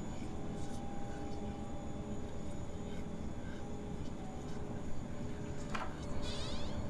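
Low, steady droning rumble with faint sustained tones, an eerie ambient underscore. About six seconds in, a short high sweep cuts through.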